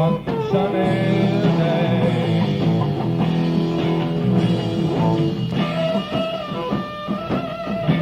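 Live rock band playing an instrumental stretch led by electric guitar, on a lo-fi bootleg recording with dull, muffled highs.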